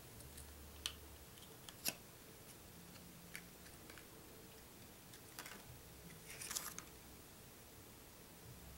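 Faint scattered clicks and a short rustle from handling the plastic cover and metal latch of an LGA 1155 processor socket on a motherboard as it is opened for the CPU. The sharpest click comes about two seconds in.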